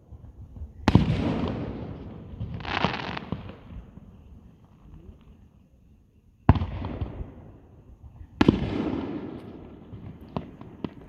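Aerial firework shells bursting: four sudden booms about one, three, six and a half and eight and a half seconds in, each trailing off in a long rumble. The second is more of a crackling hiss, and a few small sharp pops follow near the end.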